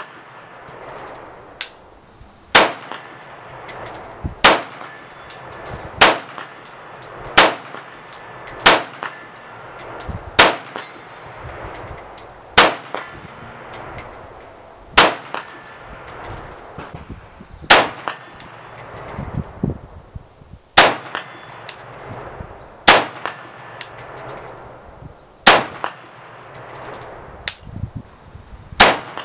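AR-15 rifle fired in slow semi-automatic succession, roughly one shot every one to two seconds, through an Armalite tunable muzzle brake. The brake has a 1/16-inch hole drilled in its top puck to stop muzzle rise.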